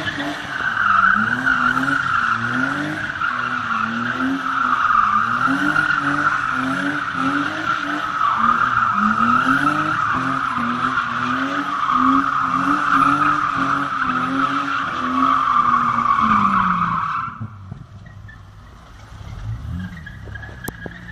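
BMW 325 spinning donuts: tyres squealing without a break while the engine's revs rise and fall about once a second. About 17 seconds in the squeal stops and the engine drops back to a low, quieter run.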